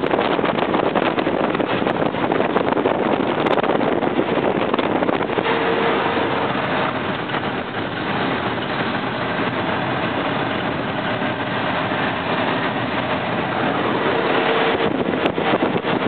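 Logging truck driving along a gravel road, heard from inside the cab: a steady, loud mix of engine and road noise, with a faint hum coming and going.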